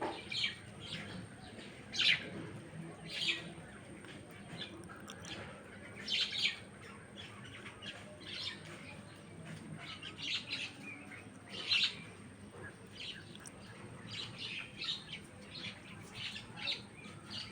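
Birds calling: a run of short, high chirps at irregular intervals, the loudest about two seconds in and again near twelve seconds.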